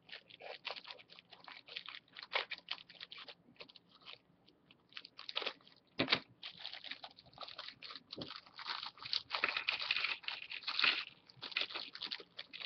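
Crinkling and crunching of plastic packaging being handled and opened to get at the Lego pieces: a dense, irregular crackle throughout, busiest in the second half.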